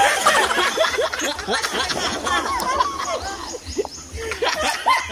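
A group of men laughing together, loud at first and dying down toward the end.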